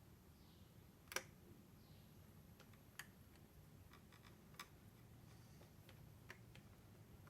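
Faint, scattered small clicks and ticks from a magnetic screwdriver working a tiny SSD securing screw in a laptop, about five spread out, the loudest about a second in, over near-silent room tone.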